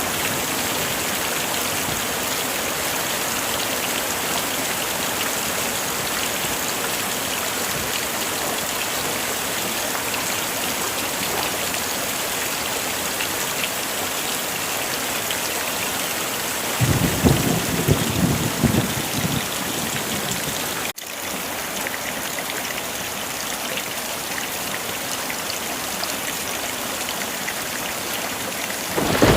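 Heavy rain falling steadily. A rumble of thunder rolls in about two-thirds of the way through and lasts a few seconds, and another begins right at the end.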